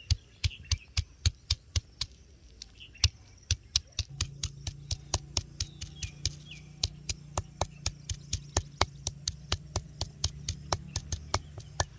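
A round hand-stone pounding on a flat stone grinding slab, sharp stone-on-stone knocks about three a second as it crushes garlic cloves and then dry spice seeds. A steady low hum comes in about four seconds in.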